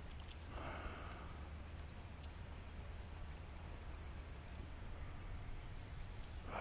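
Insects droning steadily on one high-pitched note, with a brief short sound about half a second in.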